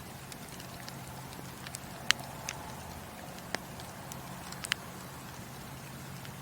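Wood fire burning in a fireplace: a steady low hiss with scattered crackles and a few sharp pops, the loudest about two seconds in and again just before the five-second mark.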